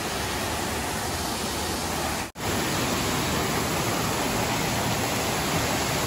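Waterfall pouring into a pool: a steady rush of falling water, cutting out for a split second just after two seconds in.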